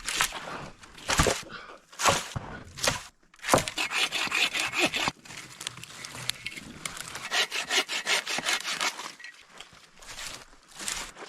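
Scraping and rasping strokes on the papery bark of a dead paper birch, as the bark is worked off the trunk for tinder. The strokes come in uneven bursts, with two longer stretches of fast, gritty scraping.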